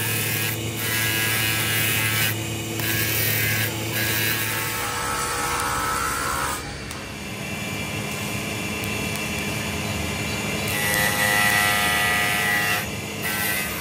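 Stick (arc) welding on a broken cast engine-block part of a Fiat tractor: the electrode's arc crackles and hisses steadily, over a low steady hum. The crackle drops out briefly a few times.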